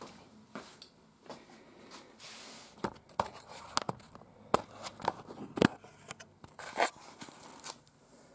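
Camera being handled and carried, with footsteps: scattered irregular clicks, light knocks and scuffs, and a brief rustling scuff about two seconds in.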